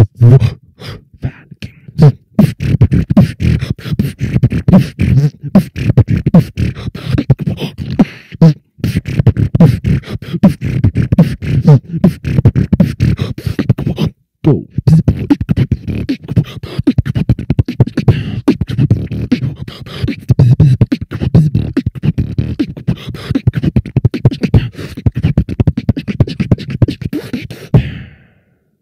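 Human beatboxing: a fast, continuous routine of vocal bass kicks, hi-hats and snares, with two brief breaks partway through. It stops just before the end.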